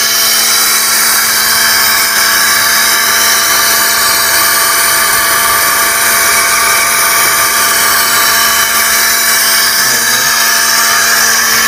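Air-powered pilot ladder winch running steadily: the pneumatic motor gives a loud, high whine and hiss with several steady tones.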